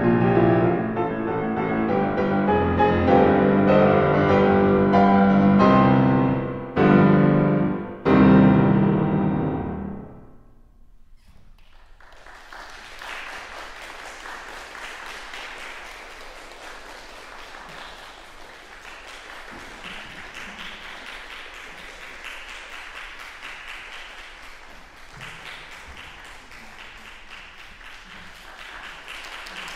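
Grand piano playing the closing bars of a sonata, ending on two loud chords about seven and eight seconds in that ring away. After a short pause, an audience applauding steadily.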